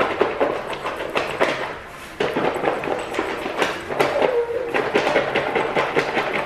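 A Chipotle burrito bowl of rice, beans and lettuce shaken hard in its lidded foil takeout container to mix it: a fast, uneven, crunchy rattling of the food against the foil and lid.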